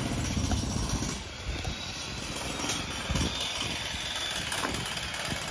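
Street ambience with a steady engine-like rumble and a few soft low thuds.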